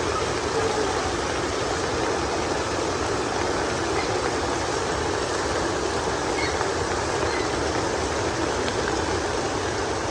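Heavy rain falling, a steady, even downpour.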